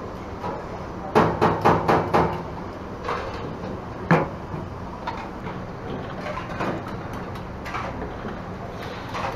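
Sharp knocks: a quick run of about six a little after a second in, then one more about four seconds in, with fainter knocks here and there over a steady low hum.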